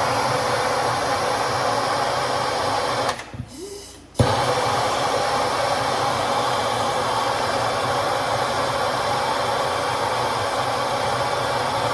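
Handheld soldering torch flame burning with a steady hiss while heating a pipe joint. It goes out about three seconds in, relights with a click a second later, and is shut off at the end.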